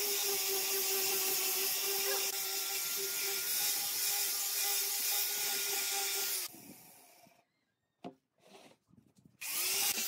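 Angle grinder with a sanding disc running steadily and sanding end-grain wood blocks, a constant motor hum under the hiss of abrasive on wood. About six and a half seconds in it cuts out, leaving a short near silence with one click, and it starts up again near the end.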